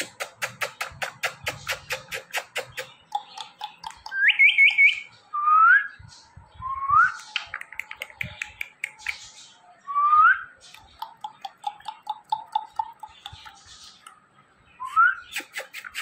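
Rapid kissing smacks from pursed lips, about eight a second for the first three seconds, then five short whistles that each slide upward, the first broken into quick repeated notes, with scattered smacks between them.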